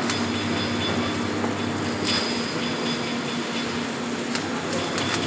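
Stick (shielded metal arc) welding: the electrode's arc crackling and sizzling steadily, with a few sharper pops and a faint low hum underneath.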